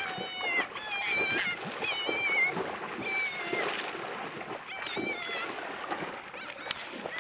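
Water splashing as a person stamps and thrashes in shallow lake water, with a series of short, high-pitched wavering cries over it.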